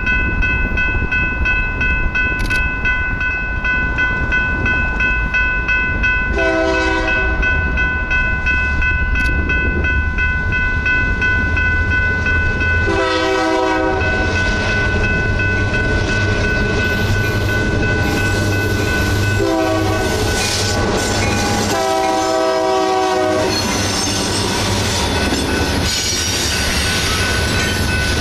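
Iowa Interstate diesel locomotive approaching with its engine running and its bell ringing, sounding the horn in the grade-crossing pattern: long, long, short, long. Near the end the freight cars roll past, wheels clacking over the rail joints.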